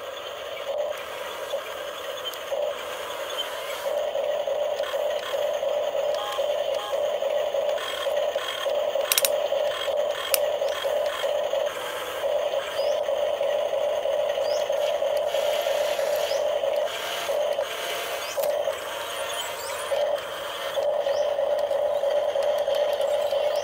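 Pliers twisting and snipping thin wire around bamboo sticks: scraping and clicking, with two sharp clicks about nine and ten seconds in, over a steady hum.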